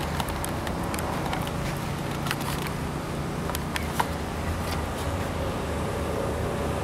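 Outdoor city ambience: a steady low rumble of distant traffic, with scattered light ticks and taps and one sharper click about four seconds in.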